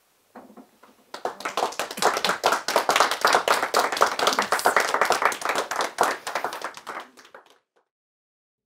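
Applause: a few scattered claps, then steady hand-clapping from several people that thins out and stops near the end.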